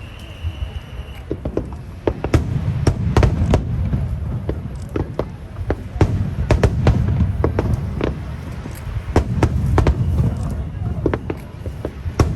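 Aerial fireworks bursting in rapid succession: many sharp bangs and cracks over a continuous low rumble of booms, growing denser after about two seconds.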